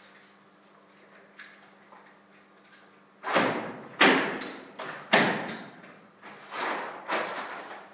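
A faint steady hum, then from about three seconds in a run of loud, sudden bangs and thuds, each dying away within about half a second, several a second or so apart.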